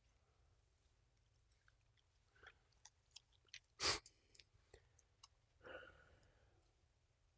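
Soft, scattered rustles and clicks of Bible pages being turned as a seated congregation looks up a passage, with one louder sharp knock about four seconds in.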